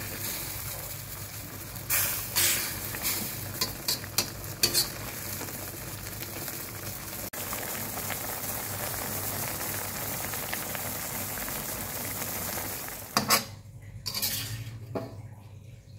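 A tofu and beef stir-fry in a thick sauce sizzling and bubbling in a steel wok, with a metal spoon scraping and knocking against the wok several times in the first few seconds. Near the end the sizzling cuts off and a few light knocks follow.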